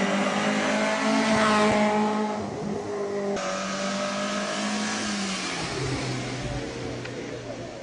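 Racing car engines revving hard as historic saloon cars drive flat out through a slalom course, one car's note replacing another's partway through. The engine note holds high, then drops sharply about five and a half seconds in.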